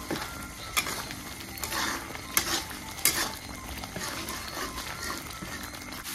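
Metal spatula stirring and scraping a masala paste frying in a metal kadai, over a steady sizzle of hot oil, with repeated scrapes against the pan about once a second.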